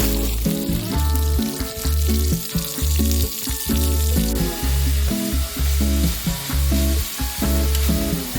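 Background music with a steady bass beat about once a second, over a steady hiss of food sizzling on a grill plate.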